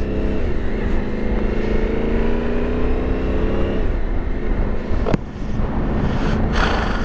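Yamaha Ténéré 700's parallel-twin engine pulling away. Its tone rises steadily for about three and a half seconds, drops at a gear change, then runs steadily under a low rumble. A single sharp click comes about five seconds in.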